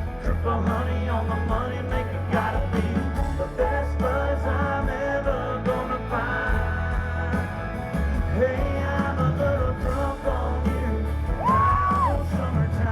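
A live country-rock band playing loudly, with voices singing and yelling over the music. Near the end a note slides up and holds.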